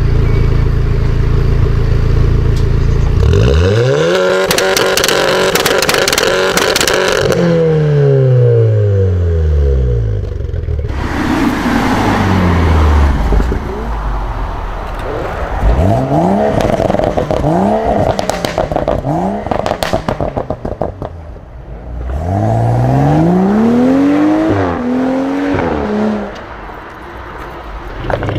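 Car engine with a modified exhaust, first idling steadily, then revved several times. Each rev sweeps the note up and lets it fall back, with crackles and pops from the exhaust as the revs drop.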